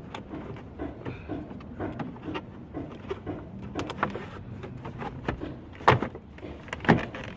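Plastic car door trim panel being handled against the door and pressed onto its clips, with small knocks and rattles, then two loud sharp snaps about six and seven seconds in as the panel is pushed home.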